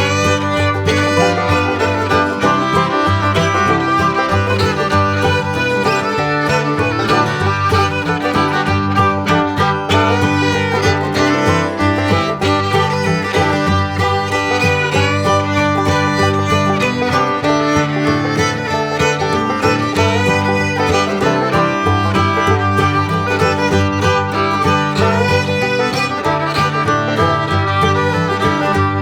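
Bluegrass-style background music with fiddle, banjo and guitar over a steady beat.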